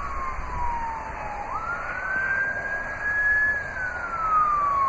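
A siren wailing, its pitch sliding slowly down, jumping back up about a second and a half in, climbing, then falling again near the end.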